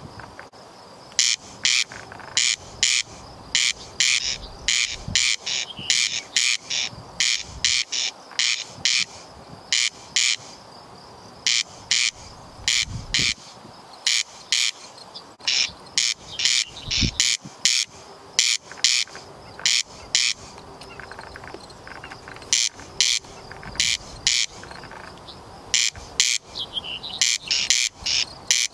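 Corn crake calling: a dry, rasping double note, crex-crex, repeated over and over in steady pairs, broken by a few short pauses.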